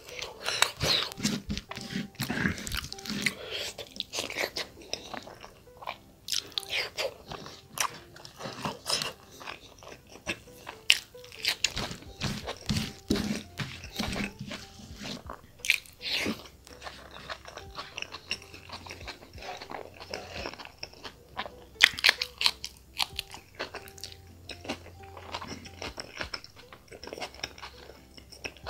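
A person chewing and biting chicken gizzard and meat with the mouth, many irregular short crunches and smacks.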